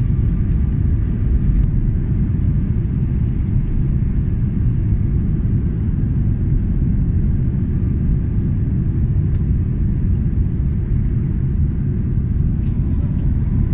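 Cabin noise of an Airbus A330 airliner descending toward landing, heard from a window seat over the wing: a steady low rumble.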